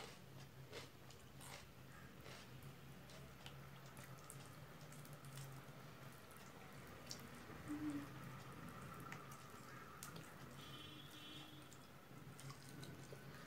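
Faint eating sounds: fingers mixing rice and chicken curry on a ceramic plate, with small wet clicks and squishes and some chewing, over a low steady hum.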